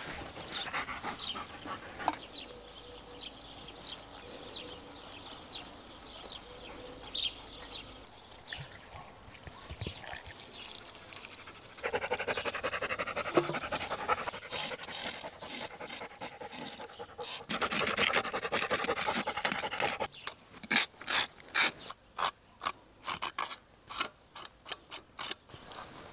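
Knife scraping along a whole sturgeon's skin in quick rasping strokes, first in dense runs, then as separate strokes about two a second near the end.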